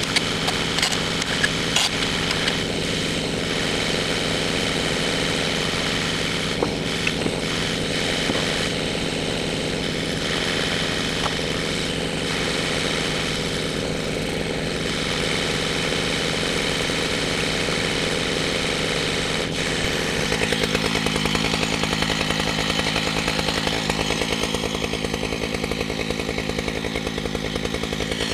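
Chainsaw on a chainsaw mill running steadily as it rips along the top of a log, taking off the top slab. A few sharp clicks come in the first couple of seconds, and from about twenty seconds in it grows a little louder with a fast pulsing.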